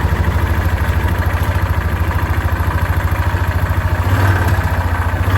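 2006 Yamaha Rhino 450's single-cylinder four-stroke engine running with a steady rapid pulsing, about a dozen beats a second, its note swelling briefly about four seconds in. The motor is rough with a low-end knock, which the owner thinks may be a cooked motor.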